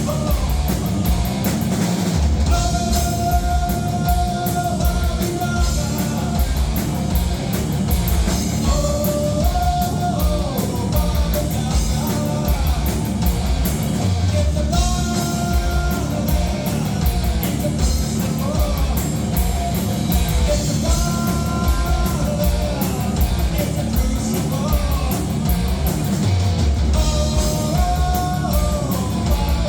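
Live rock band playing a song: a drum kit driving a steady beat under bass and electric guitar, with held melody notes that repeat in phrases of a few seconds.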